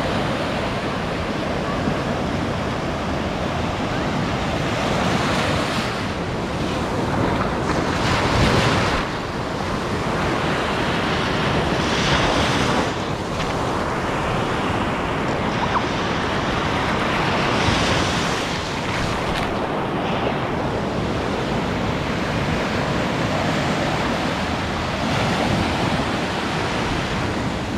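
Stormy Black Sea surf on a sandy beach: waves breaking and washing up the shore in foam, swelling louder every few seconds, with wind buffeting the microphone.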